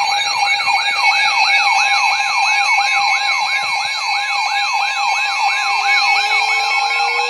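Electronic siren yelping, a rapid rise-and-fall wail repeating about three times a second over steady higher tones. A second, lower siren tone starts slowly winding up about five seconds in.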